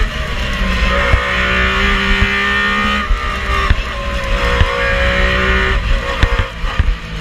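Metro 6R4's 3.0-litre V6 rally engine at high revs under full throttle, heard from inside the cockpit. There is a short break in the note about three seconds in, as with a gearchange, and then it pulls again with a slowly rising pitch. Near the end the driver lifts off, the engine note fades, and a run of sharp pops and cracks follows.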